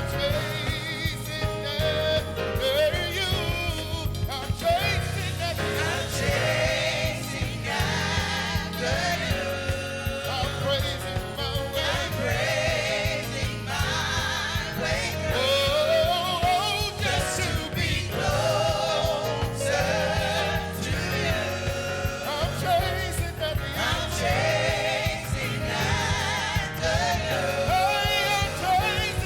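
Gospel worship music: singers holding vibrato-laden notes over a steady band accompaniment with bass and drums.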